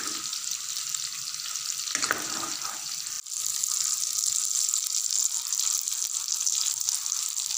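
Chicken pieces frying in shallow oil in a pan over a low flame, with a steady sizzle as the spiced chicken roasts down dry. The sizzle breaks off for a moment about three seconds in.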